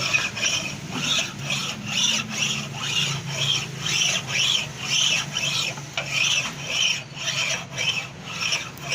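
Cylinder head of a Maruti Baleno being faced: rhythmic rasping strokes across the head's face, about two a second, over a steady low hum.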